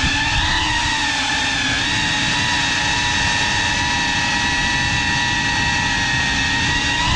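Brushless motors and propellers of a small FPV cinewhoop drone, heard from the camera on board: a steady high whine with several pitches over a rough low rush, the pitch wavering slightly with throttle.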